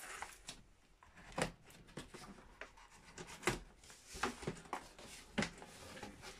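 Packing tape being peeled off a cardboard box and its flaps pulled open: rustling and scraping of cardboard with several sharp clicks and knocks.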